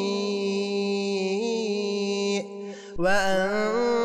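Male voice chanting the Quran in melodic tajwid recitation, holding one long ornamented note. It breaks off briefly about two and a half seconds in, then comes back on a wavering, sliding note.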